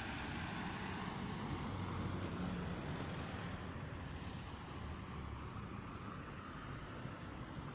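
Steady outdoor ambience: an even hiss over a low rumble, with no single event standing out.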